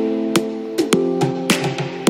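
Background music with sustained notes and sharp percussion hits.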